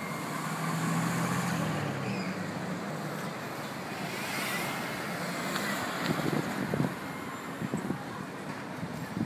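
Street traffic noise: a motor vehicle's engine hum, strongest in the first two seconds and then fading into a steady background, with a few light knocks in the second half.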